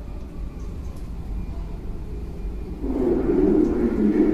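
Running sound of a Tokyo Metro 9000 series train heard from on board: a steady rumble of the car rolling along the track, which suddenly gets louder about three seconds in.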